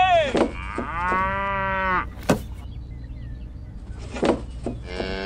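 Cattle mooing, a recorded cow sound laid over toy cows: a short higher call at the start, then one long moo about a second in and another beginning near the end. A couple of sharp clicks fall between the moos.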